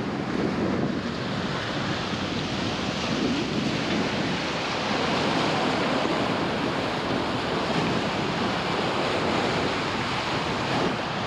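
The wake of an aluminium performance catamaran rushing and hissing steadily behind the hulls as it sails, the noisiest sound aboard from the helm, with wind buffeting the microphone.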